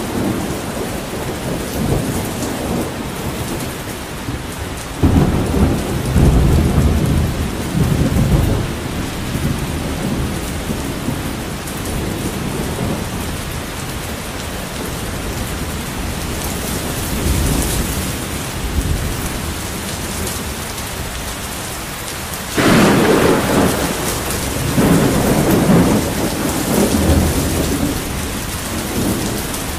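Thunderstorm: steady rain with rolling thunder. A loud rumble starts suddenly about five seconds in and rolls on for several seconds. A weaker roll comes partway through. A second sudden, louder clap comes about two-thirds of the way through and rumbles on in waves until near the end.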